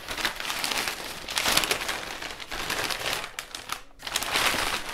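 Brown kraft paper wrapping rustling and crinkling as it is pulled off a book, in uneven bursts, loudest about a second and a half in and again just after four seconds.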